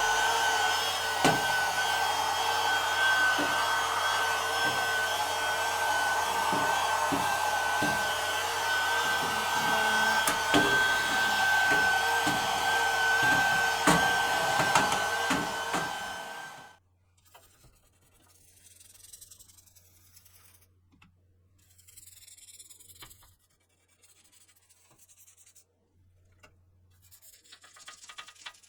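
A small electric motor running steadily with rushing air and a slightly wavering high whine, which cuts off suddenly after about sixteen seconds. After that come only faint scratching and brushing sounds.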